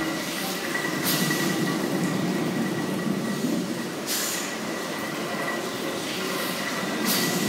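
A steam beam engine running in its engine house: a steady mechanical rumble under a thin high whine, with a hiss about every three seconds.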